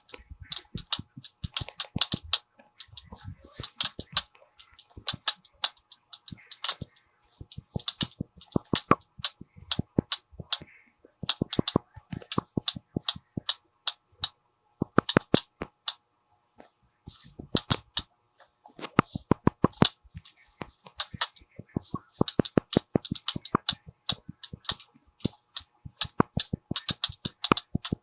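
Fingers tapping on hard surfaces: rapid runs of sharp clicks, several taps a second, broken by short pauses.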